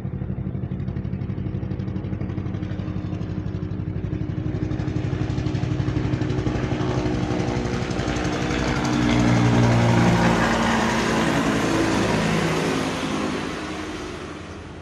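Helicopter passing overhead: the rotor and engine sound with its quick blade pulsing grows louder, is loudest about ten seconds in, then fades with its pitch dropping.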